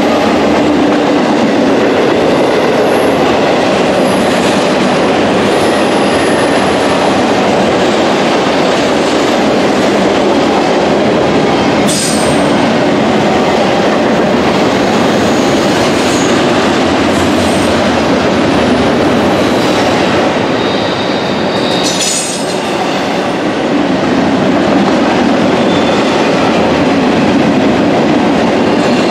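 Double-stack intermodal freight train's container well cars rolling past on a curve: a steady rumble and clatter of wheels on rail. Brief high wheel squeals come and go, and a sharp clank sounds about twelve seconds in and another about twenty-two seconds in.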